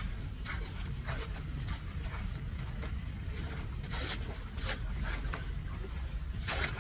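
Short splashing and scraping noises, a few seconds apart and irregular, as gloved hands and a small brush drag leaves and litter out of a clogged, flooded street drain. A steady low rumble runs underneath. The two loudest come about four seconds in and near the end.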